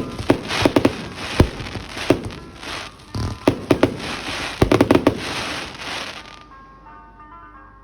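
Fireworks going off: a quick run of sharp bangs with crackling, which cuts off abruptly about six seconds in. After the cut, soft background music with bell-like notes plays.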